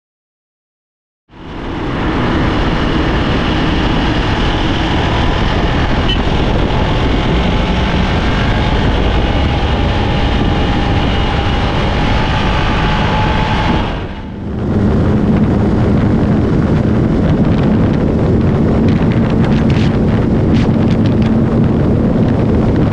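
Hero XPulse 200 4V Pro motorcycle's single-cylinder engine running on the move, with wind rushing over the microphone. It starts about a second in, dips briefly about two-thirds through, then carries on with a steady low engine note.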